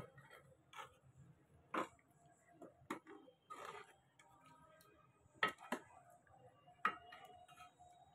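Metal ladle stirring chicken curry in a metal cooking pot, clinking and scraping against the pot with about half a dozen light, irregular knocks.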